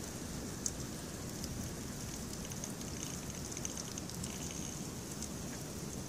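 Steady snowstorm ambience: a low, uneven rumble of wind on the microphone under a faint high hiss with light scattered ticking of falling precipitation.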